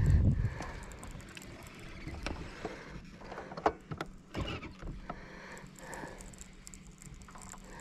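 A baitcasting reel being cranked on a lure retrieve, with scattered soft clicks and ticks, the sharpest about three and a half seconds in. A low wind rumble on the microphone dies away in the first half second.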